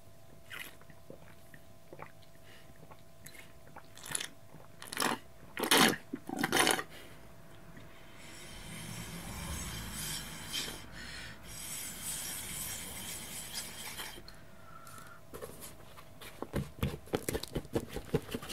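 Water dripped from a drinking straw onto a waterproof pig-leather hat: scattered small taps and splats, the loudest about five to seven seconds in, then a steady hiss for several seconds. Near the end comes a quick run of crackles and creaks as the leather hat is squeezed in the hands.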